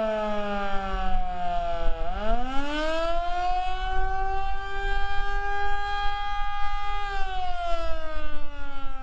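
Federal Signal Model 2 electromechanical outdoor warning siren sounding the attack signal. Its tone falls, rises sharply about two seconds in, holds steady for about three seconds, then winds down again near the end. Wind rumbles on the microphone underneath.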